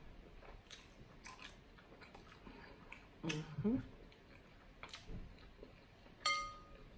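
Close-miked mukbang eating sounds: wet lip smacks and mouth clicks from licking seafood-boil sauce off the fingers, scattered through quiet. A short hummed "mm" with a rising pitch comes about three seconds in, and a brief clear ringing note about six seconds in.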